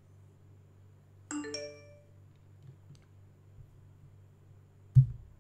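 Two-note computer alert chime, two quick ringing notes, as a software installation on the Mac completes. A short low thud follows near the end.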